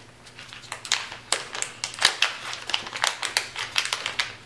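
Crinkling and crackling of a foil pouch being handled and opened by hand: a rapid, irregular run of sharp crackles.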